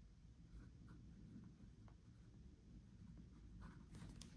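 Near silence, with faint pen strokes on planner paper: a few soft scratches and taps, several of them near the end.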